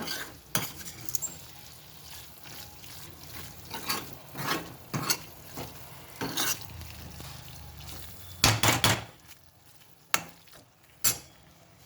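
A spoon stirring and scraping a green masala paste frying in oil in a pan, irregular scrapes and clinks against the pan over a low sizzle, with a louder run of scrapes about eight and a half seconds in. The oil is separating from the paste, the sign that the masala is cooked through.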